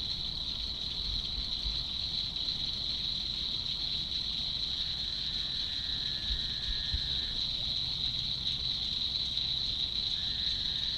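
Steady high-pitched chorus of night insects, an even drone with no pauses. Two faint drawn-out tones sound over it, one about halfway through and one near the end, with a few soft low thumps.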